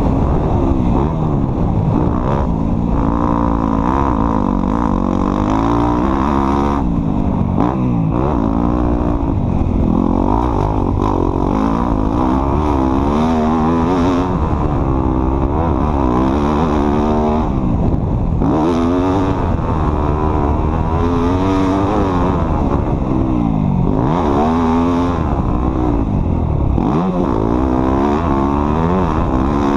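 A vehicle engine being driven off-road, its pitch rising and falling again and again as the throttle is opened and let off.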